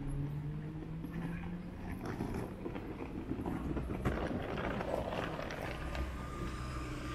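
Hard rolling-suitcase wheels rattling over paving stones as the suitcase is pulled close past, loudest about five seconds in, over a steady low hum of street traffic.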